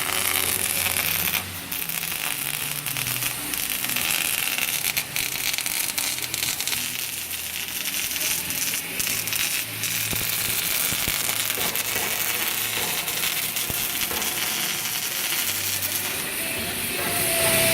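Steady, dense crackling with a hiss, typical of electric arc welding on a steel excavator bucket.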